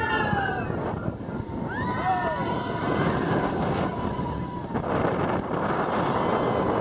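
Seven Dwarfs Mine Train roller coaster heard from a rider's seat: wind rushing over the microphone and the train running along the track, with riders whooping and screaming, one voice holding a long note for a couple of seconds.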